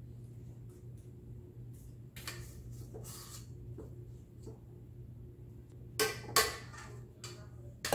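Cookie scoop scraping and clinking against a stainless steel mixing bowl while cookie dough is scooped out. There are light scrapes at first, then two sharp clinks about six seconds in and another near the end.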